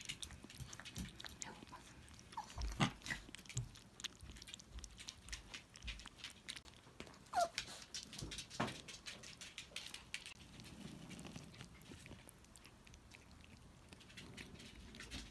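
Kitten eating softened kibble: a run of small wet chewing clicks and ticks, with one short falling squeak about seven seconds in.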